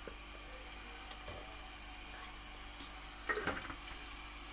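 Ginger-garlic paste frying in hot oil in a steel pan, with a steady low sizzle that briefly gets louder and crackles a little over three seconds in.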